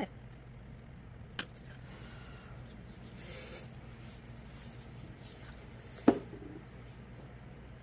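Light handling noises from craft work: faint rubbing, a small click a little over a second in and a sharper knock about six seconds in, over a low steady hum.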